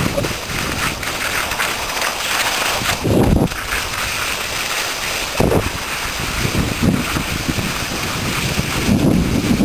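Wind buffeting the microphone during a fast downhill ski run, with the steady hiss of skis sliding over groomed snow. The low rumble surges in short gusts several times.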